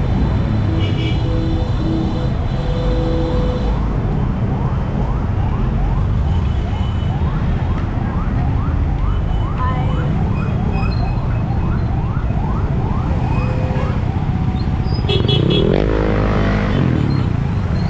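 Heavy city road traffic rumbling steadily, with a siren yelping in quick rising sweeps, about three a second, from about five seconds in until about fourteen seconds in. Near the end a vehicle passes close and gets louder.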